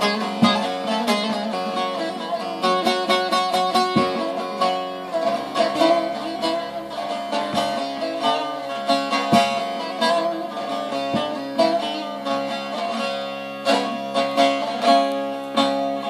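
Solo long-necked bağlama (Turkish saz) played with a plectrum: a stream of quick picked notes over steadily ringing strings, without singing.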